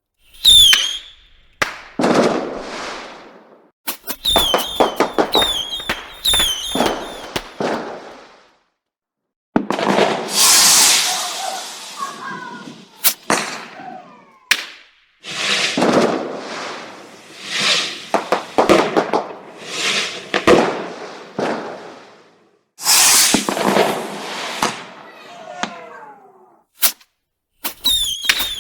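Fireworks going off: sharp bangs, bursts of crackling and whistling tones, some of which fall in pitch. They come in several separate volleys with a few short silences between them.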